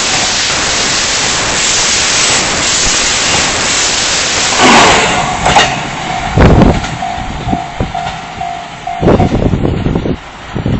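Limited express train rushing past over a level crossing, a loud steady roar of wheels and air that dies away about halfway through. Then the crossing's warning bell rings on in a steady repeating tone and stops a second or so before the end, with a few low thumps.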